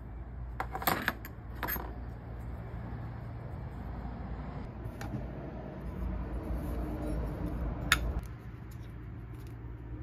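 Small metal parts clicking and clinking as they are handled, with a few sharp clicks about a second in, around five seconds and near eight seconds, over a low steady rumble.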